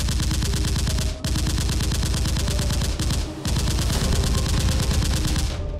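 Automatic gunfire sound effect dubbed over toy blasters: rapid shots in three long bursts, with short breaks about a second in and about three seconds in.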